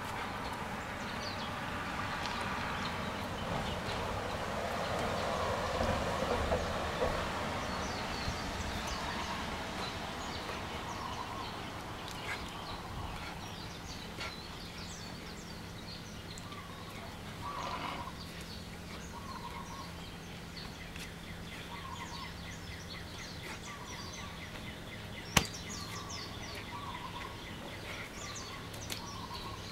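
Outdoor bird sounds: many short, high chirps, and from about halfway a lower call repeated every second or so. Early on a rush of noise swells and fades, there is a faint steady hum, and one sharp click comes near the end.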